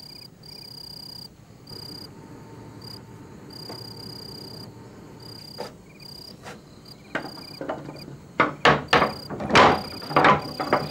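Crickets chirping steadily. From about seven seconds in comes a run of loud knocks on a wooden door, some in quick pairs, that carries on almost to the end.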